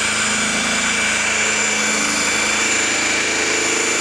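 Cordless drill running steadily, spinning a buff ball against a plastic headlight lens to polish it with paste toward a near-clear finish.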